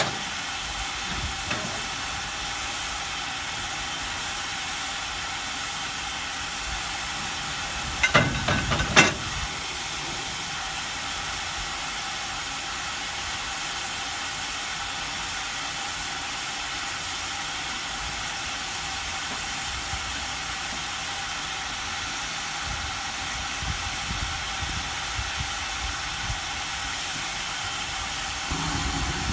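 Preserved steam locomotive hissing steadily as it stands, with steam escaping. There are two brief, loud sounds about eight and nine seconds in.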